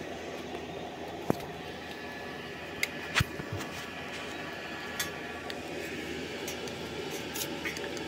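A few sharp metallic clicks and knocks from a tool being worked against a fresh weld on a metal pipe, over a steady background hum.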